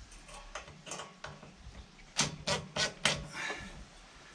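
DeWalt cordless drill driving a screw into wood, the motor running in short spurts with a run of four sharp clicks about two seconds in.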